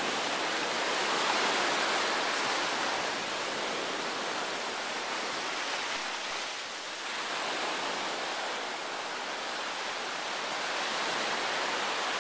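Small waves washing up on a sandy beach: a steady rush of surf that eases briefly about seven seconds in.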